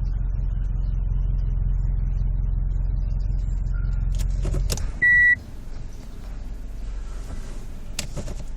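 Car running with a steady low rumble from underneath, the grinding noise the owner hears when the car is in drive or reverse. About four and a half seconds in come a few clicks and a short, loud high beep, after which the rumble drops to a much quieter level.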